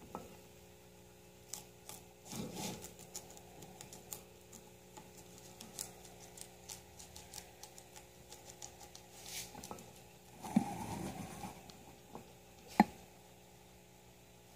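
A guinea pig chewing curly endive: quick, irregular crunching clicks, with louder rustling of the leaves about two and a half seconds in and again around ten to eleven seconds, and one sharp click near the end.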